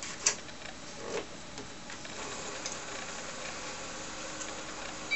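TRS-80 Model III computer booting CP/M from its floppy disk drives: two clicks in the first second or so, then a steady hum and hiss with faint ticking from the running drives. A short beep comes right at the very end.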